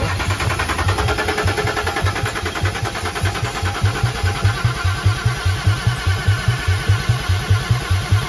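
Range Rover diesel engine cranking on the starter without catching, a steady rhythmic chug of about four to five beats a second. It is turning over hard with air still in the freshly tightened injector lines, the fuel system not yet bled.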